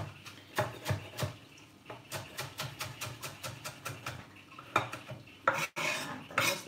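Kitchen knife chopping sweet potato leaves on a wooden cutting board: a run of quick knocks, a few a second, then a louder cluster of knocks and scraping near the end as the chopped greens are gathered up.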